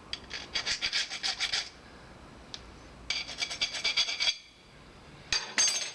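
Hand file rasping back and forth on the wire winding of a microwave's motor, in quick strokes of about six a second, in three short bouts. The wire is being filed to check whether it is copper rather than aluminum.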